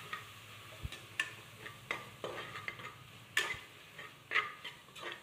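Metal spoon stirring and scraping through onions, tomato and fresh mint and coriander as they are sautéed in a pressure cooker, with irregular clinks against the pot.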